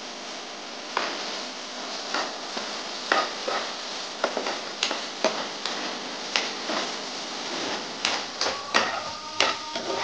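Vegetables frying in a non-stick pan, with a metal spatula stirring them and scraping and knocking irregularly against the pan base from about a second in.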